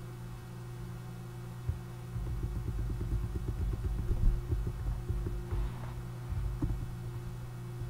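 A steady electrical hum, with a run of low, irregular knocks and rumbling from about two to seven seconds in.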